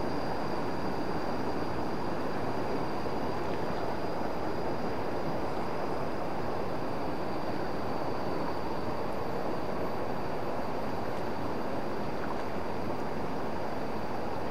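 Steady rushing of a swollen river in flood, running fast after heavy rain.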